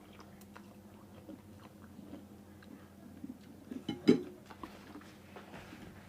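A person eating boat noodles: soft chewing and small mouth clicks, with one much louder sharp knock or clink about four seconds in.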